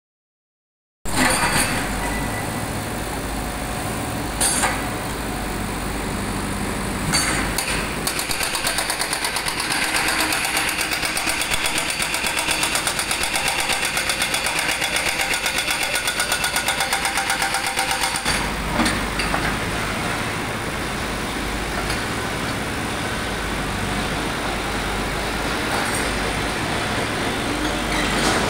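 A JCB 3DX backhoe loader's diesel engine runs steadily. Its hydraulic rock breaker hammers a concrete wall in a fast, even rhythm for about ten seconds in the middle, after a few single knocks.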